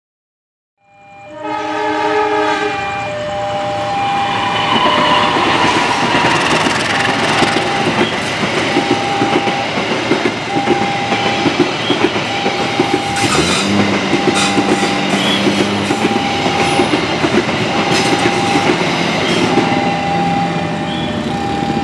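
CC 203 diesel-electric locomotive and its passenger coaches passing close by at speed. A multi-tone train horn sounds for about two seconds near the start, then the train runs past with wheels clattering over the rail joints. A level-crossing warning signal beeps about once a second under the train noise.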